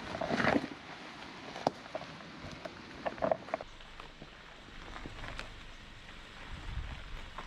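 Off-road vehicle creeping over a rocky track: scattered knocks and crunches of stone, the loudest at the start, with a low engine rumble coming in near the end.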